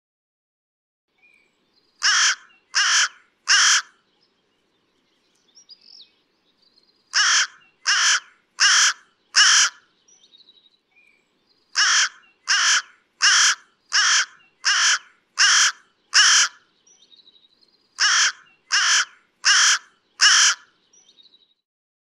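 Carrion crow cawing: four bouts of repeated caws, three to seven in each, spaced about three quarters of a second apart.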